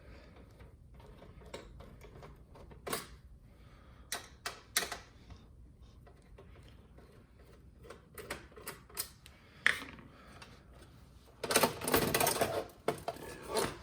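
Scattered small clicks and taps of a screwdriver and screws working on a Blu-ray player's metal chassis while its drive is being unfastened. A louder stretch of rattling and scraping comes about eleven seconds in.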